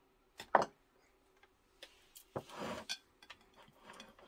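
Light knocks and clicks of a white ceramic serving dish being moved and turned on a wooden cutting board, the sharpest a quick double knock about half a second in, with a short scrape about halfway through.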